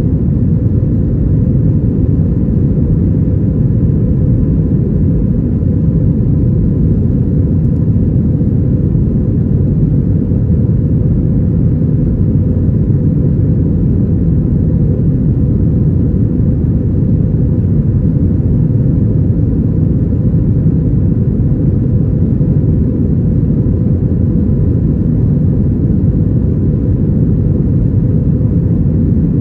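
Airbus A321-232 with IAE V2500 engines, heard from inside the passenger cabin: a loud, steady rumble of engine and airflow noise, with a faint steady whine above it.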